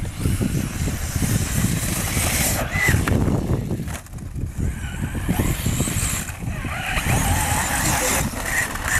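Kyosho Inferno RC buggy with a TP-Power 4050 2200kv brushless motor on 6S LiPo, driving on sand with paddle tires: the motor's whine rises and falls over a steady low rumble. The sound breaks off and changes abruptly a few times.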